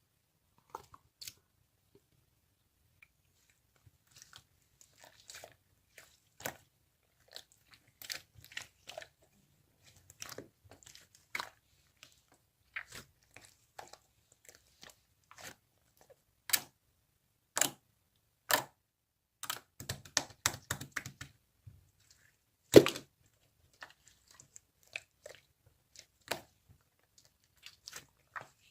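Slime being squeezed and worked by hand, giving irregular sticky clicks, pops and crunches, with one louder pop near the end.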